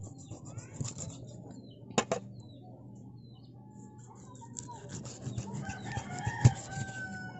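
Kitchen knife chopping through a milkfish into steaks on a wooden chopping block: sharp knocks about two seconds in and again near the end, the last the loudest. Near the end a rooster crows in the background in one long call.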